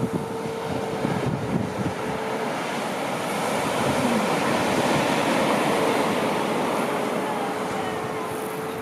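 Surf washing onto a beach with wind buffeting the microphone, growing louder toward the middle. Through it, a steady moaning note is held for a couple of seconds at the start and again from the middle on, from grey seals in the colony.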